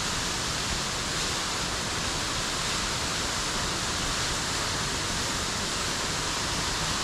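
Steady rush of the La Chorrera waterfall's falling water, an even, unbroken hiss with no change in level.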